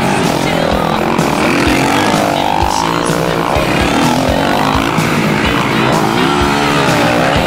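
Several motocross bikes accelerating past in a pack. Their engines rev up and down, with pitches rising and falling as the riders work the throttle and shift.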